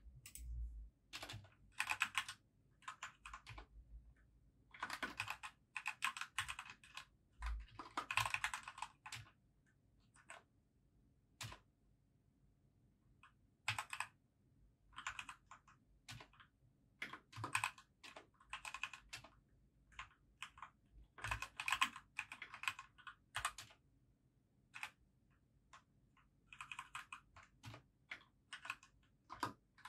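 Typing on a compact mechanical keyboard: quick runs of key clicks broken by pauses of a second or two with only an odd single keystroke.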